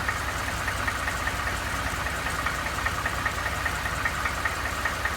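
Ford F-150 engine running steadily with a regular sharp knock, about five a second, over its low rumble: the knock that appeared in this used truck after about 1000 miles.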